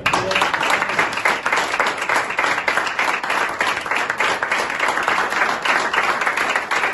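Applause from a roomful of people, many hands clapping together; it breaks out suddenly and stays steady and dense.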